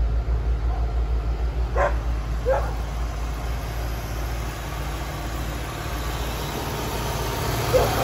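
Ford Thunderbird's 5.0 V8 idling with a steady low rumble, quiet at the exhaust. A dog barks twice about two seconds in.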